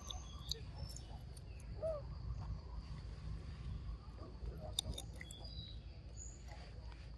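Long-tailed macaques eating scattered fruit pieces, with small clicks of chewing and handling. Behind them runs a steady high insect drone, with a few short high chirps and one brief low call about two seconds in, over a low rumble.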